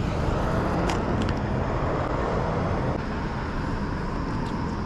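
Steady rushing of river current flowing under a bridge, with a couple of faint clicks about a second in.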